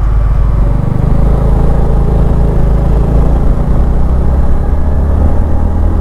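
Motorcycle running at a steady cruising speed on the road, its engine sound mixed with a low rumble of wind and road noise.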